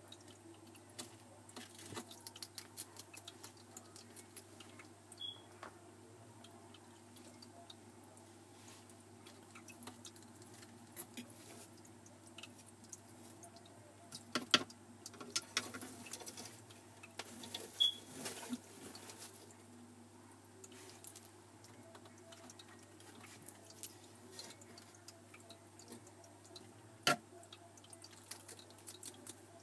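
A bearded dragon being hand-fed from metal feeding tongs: scattered faint clicks, ticks and snaps of the tongs and the lizard's bites. A few louder snaps come about halfway through and one near the end, over a low steady hum.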